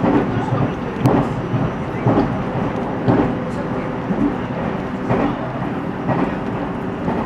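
Cabin noise of a JR 313-series electric train running at speed: a steady rumble of wheels on rails, with clacks about once a second as the wheels cross rail joints.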